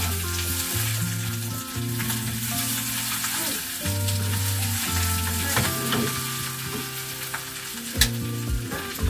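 Sauté potatoes sizzling as they fry in oil in a frying pan, stirred with a slotted spatula. There is a sharp tap about eight seconds in.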